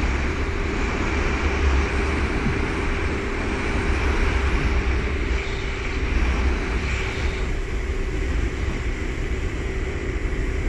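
Steady rush of wind buffeting the microphone and water hissing under a wakeboard towed at speed behind a motorboat, with a low steady hum underneath.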